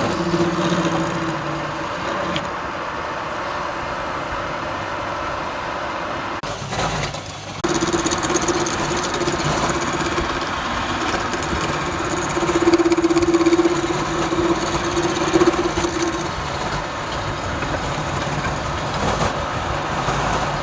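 Wood lathe running with a steady motor hum while a tool works the spinning wood with a rough scraping noise. The hum breaks off for about a second some six and a half seconds in, then picks up again.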